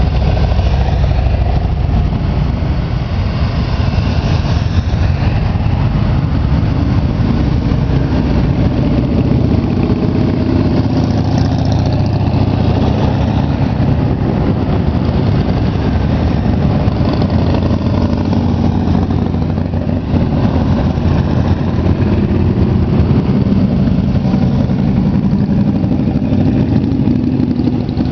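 A line of motorcycles, touring bikes and trikes, passing slowly one after another, their engines overlapping in a steady, loud low drone.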